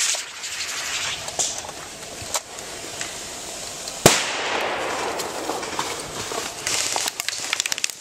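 Airsoft gunfire: scattered single pops, a sharp crack about four seconds in, and a rapid burst of automatic-fire pops near the end.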